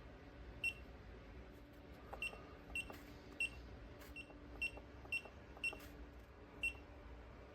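Short, faint chirps from a Genmitsu 3018-PROVer desktop CNC mill's stepper motors making brief jog moves, about nine of them at uneven intervals over a faint steady hum.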